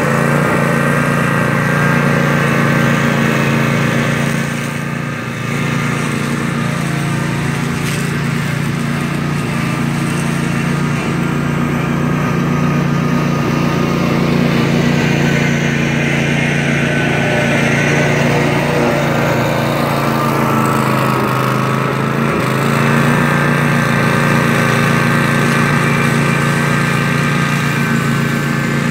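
Cub Cadet zero-turn riding mower running steadily under load, its engine and blades cutting tall grass, with a brief dip in loudness about five seconds in.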